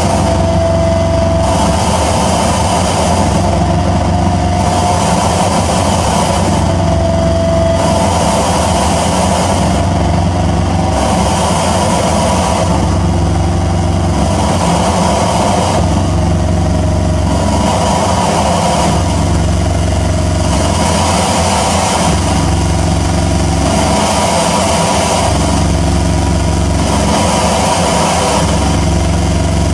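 Loud droning electronic noise music played live on tabletop electronic gear: a dense, continuous wall of sound whose layers cut in and out in a slow repeating pulse every few seconds.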